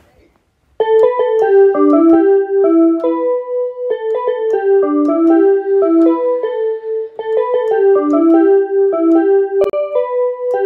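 Electronic home keyboard played one note at a time: a simple melody that starts about a second in, with the same short phrase repeated about three times.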